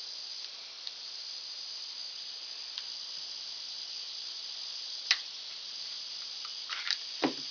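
A steady high insect chorus, with a few small clicks of the .22 pistol being handled; the sharpest comes about five seconds in.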